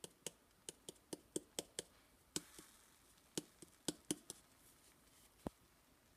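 Faint, sharp taps on a cinnamon shaker while cinnamon is sprinkled out: about fifteen light clicks at uneven spacing, quicker in the first two seconds, then more spread out.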